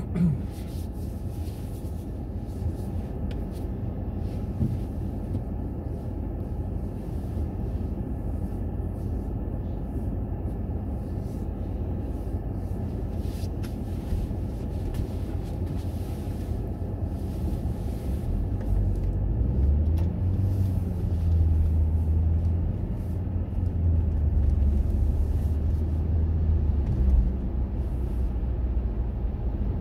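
Steady low rumble of motor-vehicle traffic, growing louder with a deep engine hum about two-thirds of the way through, then easing off.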